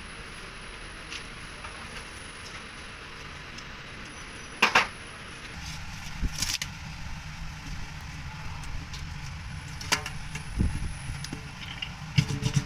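Steady background noise with a few sharp knocks and clicks from hand work on a truck tyre patch repair: a loud knock about five seconds in, a click later, and a cluster of knocks near the end.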